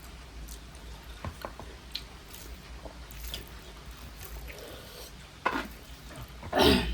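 Close-up eating sounds: wet chewing and lip smacks with small clicks, a louder burst about five and a half seconds in and the loudest one near the end.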